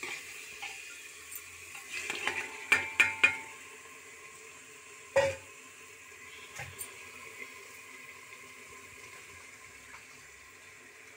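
Metal utensils clanking against a steel bowl and an aluminium pressure cooker as boiled chickpeas are added to frying masala and stirred. A cluster of ringing knocks comes about two to three seconds in and one sharp knock about five seconds in, over a faint steady sizzle.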